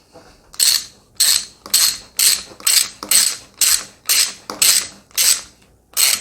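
A Jubilee clip (worm-drive hose clamp) being tightened around a washing machine drain hose with a screwdriver. It makes short ratcheting rasps, about two a second, as the clamp is done up.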